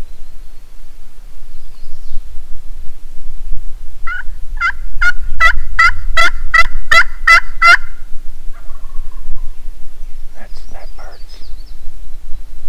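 Hunter's turkey call sounding a series of about eight loud yelps, a little over two a second, starting about four seconds in: calling to strike a gobble from a tom.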